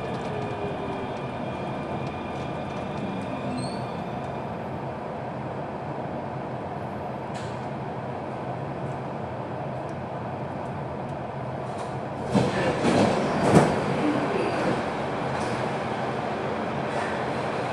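Metro train running, heard from inside the car: a steady rolling rumble of wheels on rail, with a faint falling motor whine in the first few seconds. About twelve seconds in comes a brief burst of louder clattering and knocks, lasting about two seconds.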